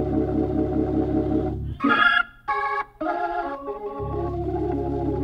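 Organ playing sustained chords with a fast wavering pulse under them. The low bass note drops out about two seconds in while a few brighter, higher chords sound, then returns about four seconds in.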